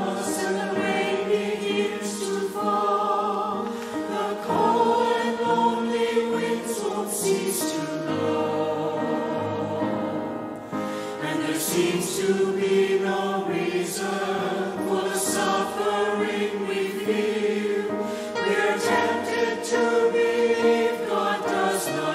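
Mixed church choir of men's and women's voices singing an anthem together, with a brief dip between phrases about ten seconds in.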